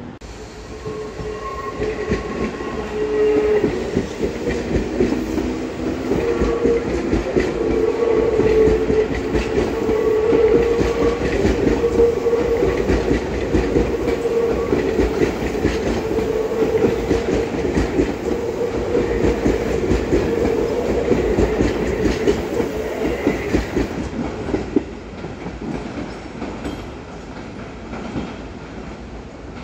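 Seibu Ikebukuro Line electric commuter train running past on the tracks, wheels clacking over the rail joints under a steady motor hum. The sound builds over the first few seconds and drops away after about 24 seconds.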